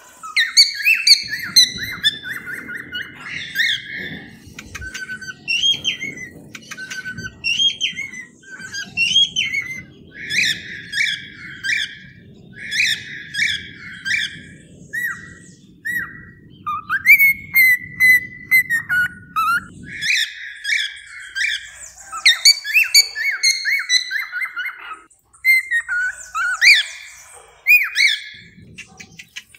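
Cockatiels chirping and warbling: a steady run of short whistled notes, many of them rising, with a faint low hum beneath that stops about two-thirds of the way through.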